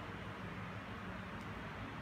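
Steady background hiss with a faint low hum: room tone, with no distinct handling sounds standing out.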